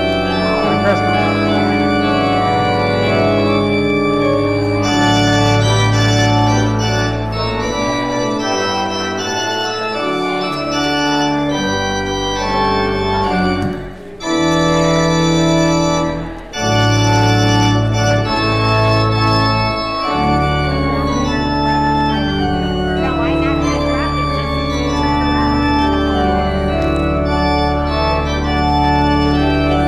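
Church organ playing sustained full chords that change every second or two, with two brief breaks about 14 and 16½ seconds in and a deep held bass note entering about 20 seconds in.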